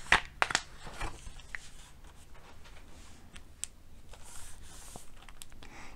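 Pages of a picture book being turned and smoothed flat by hand: a few sharp paper rustles and taps in the first second and a half, then soft rubbing with occasional light ticks.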